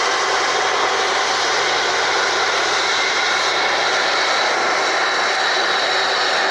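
Turbofan jet engines of a Boeing 747 Dreamlifter running steadily: a loud, even rush with faint high whining tones.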